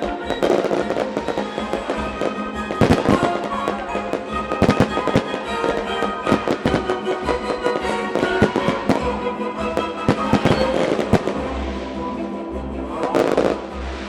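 Fireworks shells bursting in quick succession, a dense run of sharp bangs, over a music soundtrack. The last big cluster of bursts comes near the end, then the bangs die away.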